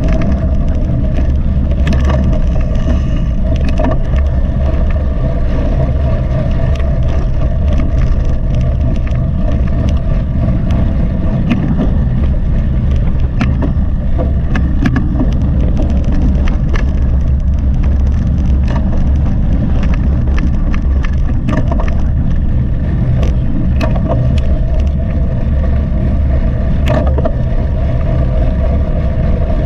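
Mountain bike being ridden at speed, with heavy wind buffeting on the GoPro microphone, a steady hum and scattered sharp clicks and rattles from the bike over rough ground.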